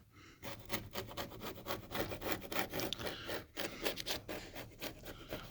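Steel putty knife scraping failed, bumpy shellac off old stained wood molding in many quick, short strokes, a dry rasping scrape of blade on finish starting about half a second in.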